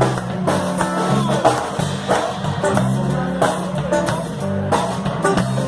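Brazilian popular song with guitar and a steady beat, in an instrumental break between sung verses.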